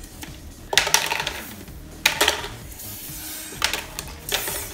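Small hard candies clicking and clattering as they are dropped into plastic cups and tap on paper plates: about four sharp clicks spread over the few seconds.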